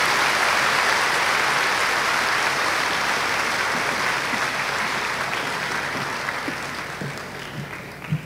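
An audience applauding, a dense steady clapping that slowly fades toward the end, with a brief low bump just before it ends.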